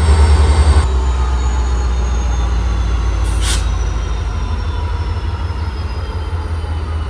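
WDP-4 locomotive's 16-cylinder EMD 710G3B diesel engine running with a heavy low drone. A high whine slowly falls in pitch, the note changes abruptly just under a second in, and a short hiss of air comes about three seconds in.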